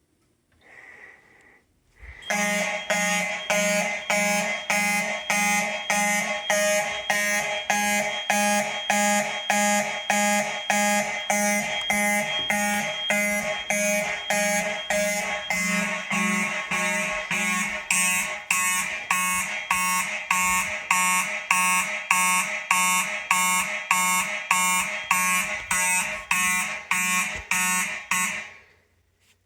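Several fire alarm sounders going off together in a steady fast pulse, about two beats a second, with a mix of tones. They start about two seconds in after a short faint beep and cut off near the end, when the system is silenced.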